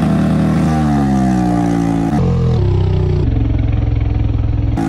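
A Hero motorcycle with a loud aftermarket exhaust being ridden. The exhaust note falls away as the throttle is eased over the first two seconds. It then holds steadier, lower notes, shifting abruptly a couple of times.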